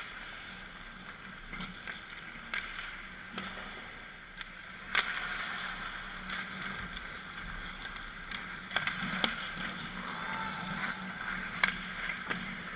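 Ice hockey play: skates scraping on the ice under sharp clacks of sticks and puck. The loudest clacks come about five seconds in, twice around nine seconds, and again near the end.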